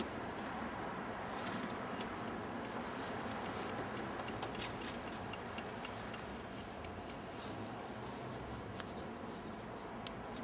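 CNC-converted Myford ML7 lathe running steadily, with scattered faint ticks and clicks over the hum.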